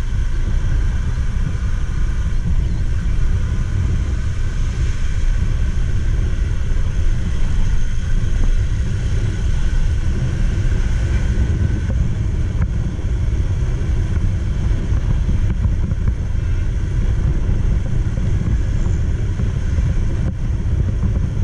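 Wind buffeting the microphone of a camera on a moving two-wheeler, a steady low rumble, mixed with road and tyre noise from a wet road surface.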